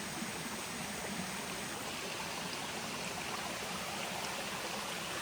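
Steady rushing of running water from a forest stream.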